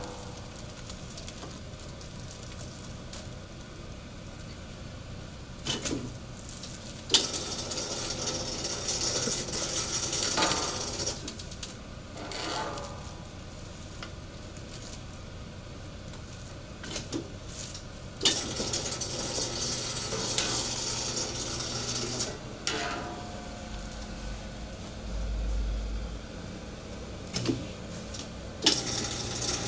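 Clear polyolefin shrink film being handled and heat-sealed around a pig ear on a shrink-film sealer. There are several sharp clunks from the sealer and two stretches of crinkly hissing several seconds long. A low hum comes in toward the end.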